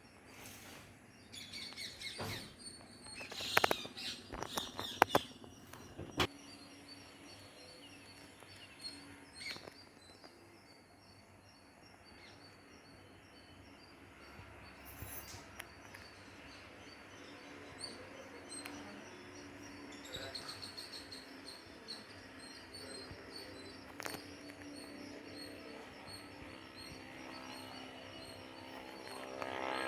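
Parrots calling in a tree: several loud, sharp calls in the first six seconds, then steady, quieter high chirping.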